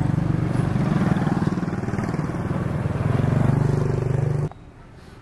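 An engine running close by, its pitch rising and falling a little, that cuts off suddenly about four and a half seconds in.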